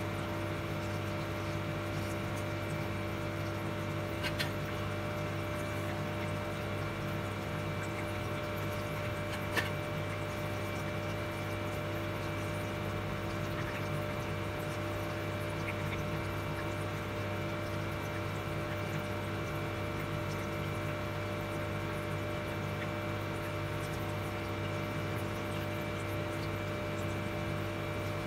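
Steady hum and thin high whine of an induction cooktop running under a pan, over a soft sizzle of sweet potato chunks frying in oil. Two light knocks, about four and ten seconds in.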